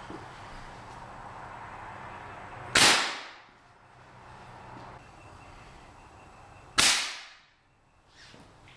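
Homemade compressed-air gun on 115 PSI shop air firing twice, about four seconds apart. Each shot is a single sharp blast as the quick exhaust valve dumps the reservoir through the barrel, fading within about half a second. A steady hiss of air comes before each shot.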